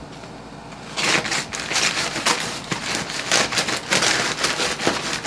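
A mailer envelope crinkling and rustling as it is sliced open with a kitchen knife and handled, a dense crackling that starts about a second in.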